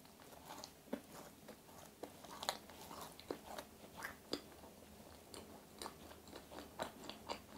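Biting into a cookies-and-cream macaron and chewing it with the mouth closed: soft, irregular crunchy clicks of the shell and filling, several a second.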